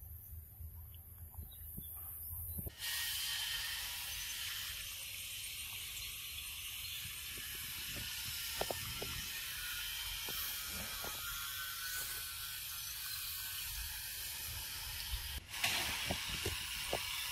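Steady, high-pitched drone of a forest insect chorus that starts suddenly about three seconds in and breaks off briefly near the end. A few faint taps sound under it.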